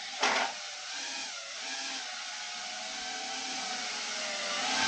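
Tiny FPV drone's Flywoo ROBO 23000KV brushless motors and Gemfan 2-inch three-blade props whining in flight, several tones sliding up and down in pitch. A brief loud burst of noise about a quarter second in, and the whine grows louder near the end.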